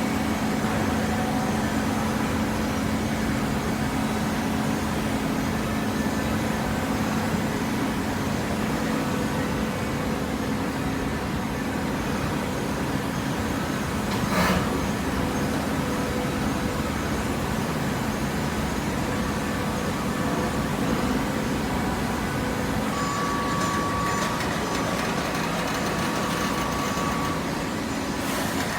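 A machine running steadily with a low hum, with one short sharp click about halfway through.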